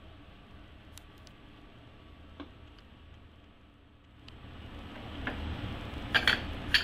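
Kitchen utensils and dishes handled while soup is served: a few light ticks over low room noise, then near the end several sharp clicks and clinks.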